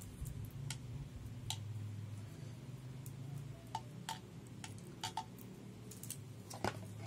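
Scattered small plastic clicks and taps as a cordless phone's power adapter and its cable plug are handled and fitted together, the sharpest click near the end, over a low steady hum.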